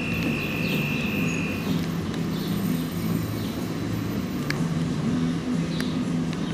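Street traffic ambience with a vehicle engine running, and a high steady tone that stops a couple of seconds in; a few faint clicks.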